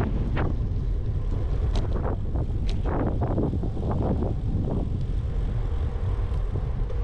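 Wind buffeting an action camera's microphone on a moving bicycle: a steady low rumble with irregular gusty swells, along with tyre and road noise on the paved trail.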